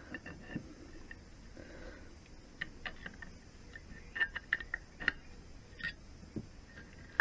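Scattered light metallic clicks and taps of steel gearbox parts, a toothed quadrant and a thin rod, being handled and fitted into an aluminium gearbox cover. A quick run of clicks comes about four seconds in.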